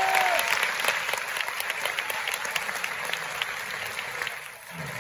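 A large audience applauding. Many claps blend into a dense wash that thins out and fades away near the end.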